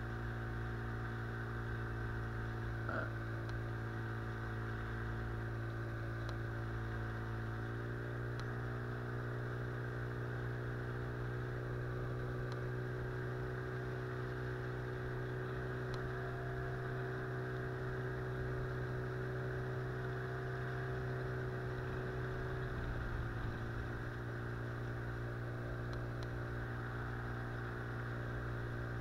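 Outboard motor pushing an inflatable boat upriver at a steady cruise, its note stepping up a little about a third of the way through and dropping back near the end.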